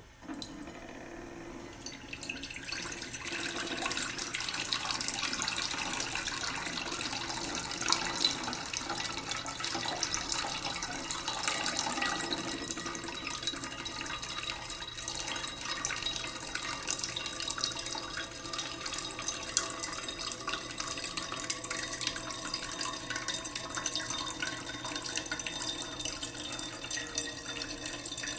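Water running from a kitchen tap into a cooking pot in the sink, slowly filling it: a steady stream of splashing water with a few held ringing tones from the pot. The stream gets louder about two seconds in.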